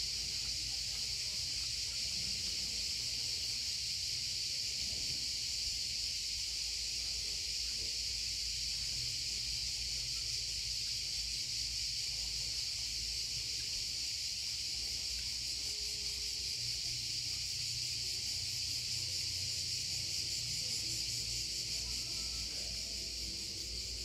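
Cicadas singing in a continuous, high-pitched drone that holds steady throughout and fades slightly near the end.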